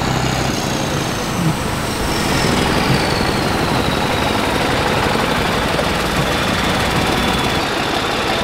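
New Holland farm tractor's diesel engine running steadily as the tractor drives up close.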